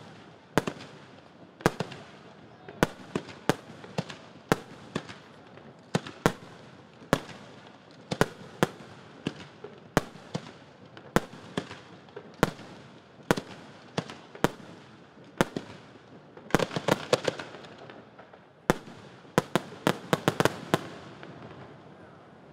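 Aerial firework shells bursting in a steady run of sharp bangs, about one or two a second, with two denser rapid volleys, one about three-quarters of the way through and one just before the end; the bangs stop shortly before the end.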